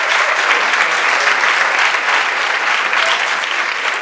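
Theatre audience applauding a live stage performance, a loud, dense, even clapping.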